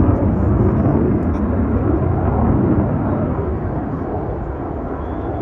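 Jet noise from an F-35A Lightning II's single Pratt & Whitney F135 afterburning turbofan in flight: a loud, low, rushing rumble that eases slowly.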